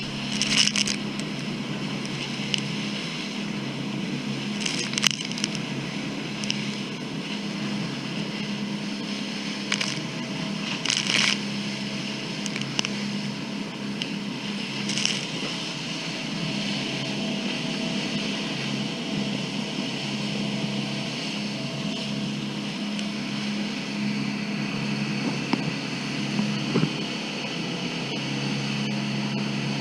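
Boat engine running at a steady pitch under a constant rush of water and wind, with a few brief louder rushes of spray.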